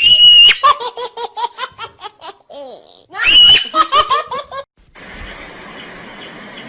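A baby laughing: two high shrieks, each followed by a run of quick, rhythmic bursts of laughter. The laughter gives way to a quieter steady hiss for the last couple of seconds.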